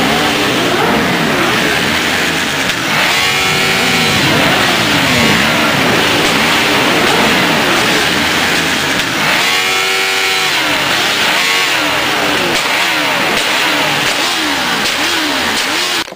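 Motorcycle engines revving over and over, their pitch sweeping up and down in quick repeated rises and falls. The sound is loud and continuous and cuts off suddenly near the end.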